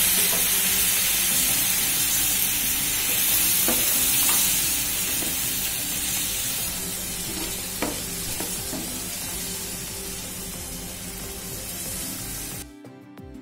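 Prawn roast masala sizzling in a non-stick frying pan with a little water just added, while a spatula stirs it and scrapes the pan a few times. The sizzle slowly fades, then cuts off near the end, where background music comes in.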